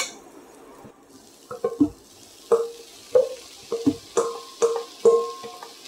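Cooked white beans being scraped with a wooden spoon out of a stainless-steel bowl into a hot frying pan. There are repeated knocks, about two a second, each leaving the metal bowl ringing, over a faint sizzle that starts about a second in.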